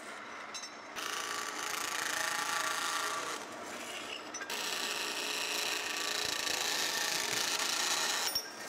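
Marvel metal-cutting band saw running as its blade cuts through steel angle iron. It is a steady noisy sound in two stretches: it eases off briefly about three and a half seconds in, then runs again until just before the end.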